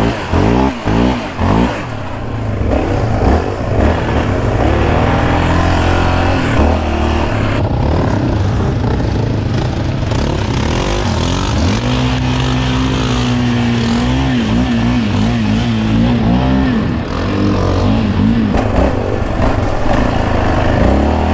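Yamaha Raptor 700R's single-cylinder engine, fitted with an aftermarket Monster exhaust, revving up and down again and again as the quad is ridden through mud. The revs hold steadier for a few seconds past the middle.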